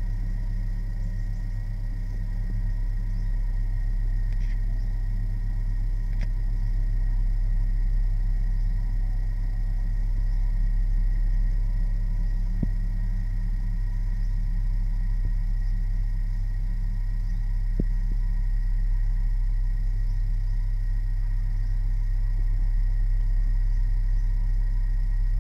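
A steady low hum with faint steady high tones above it, and two light clicks, about halfway and about two-thirds through, the first of them a metal spoon against a small salt bowl.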